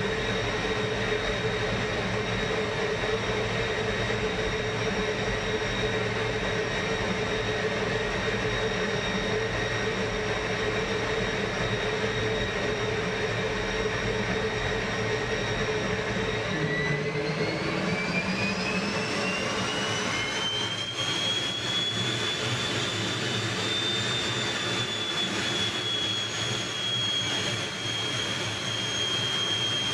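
MiG-15 jet fighter's turbojet heard from inside the cockpit, running with a steady whine. About halfway through the whine rises in pitch over several seconds and then holds high as the engine spools up.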